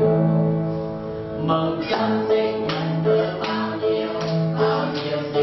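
A small mixed group of men's and women's voices singing together in unison, accompanied by an upright piano and an acoustic guitar. From about a second and a half in, guitar strums land on the beat, roughly one every three-quarters of a second.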